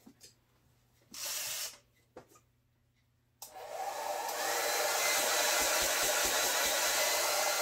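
Handheld hair dryer blowing in a short burst about a second in. It is switched on again about three and a half seconds in, its fan whine rising as it spins up, then runs steadily.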